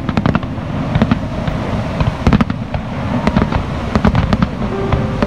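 Fireworks going off in a rapid, irregular string of sharp cracks and pops over a continuous low rumble.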